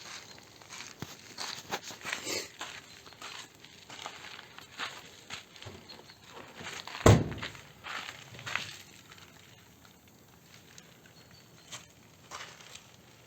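Scattered light clicks and knocks of hands working on car body parts, with one loud, low thump about seven seconds in.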